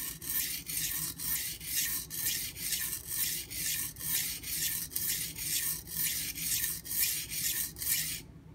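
High-carbon stainless kitchen knife stroked back and forth on a coarse 180-grit Nubatama Ume whetstone under light hand pressure, a rhythmic scraping hiss at about two strokes a second. The strokes stop abruptly shortly before the end.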